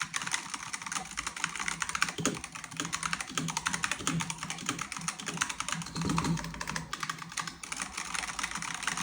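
Razer Huntsman V3 Pro gaming keyboard being typed on fast: a continuous, dense run of keystroke clacks from its optical switches, with a deeper knock now and then.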